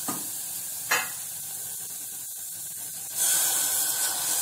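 Spice masala sizzling in an aluminium pressure cooker while a silicone spatula stirs it, with one sharp tap about a second in. About three seconds in, water poured in from above hits the hot masala and a louder rushing hiss takes over.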